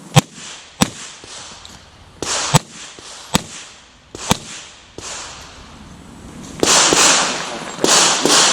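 Handgun shots fired at irregular intervals during a stage, about five or six sharp cracks in the first five seconds, the first the loudest. Near the end come two longer rushing noises.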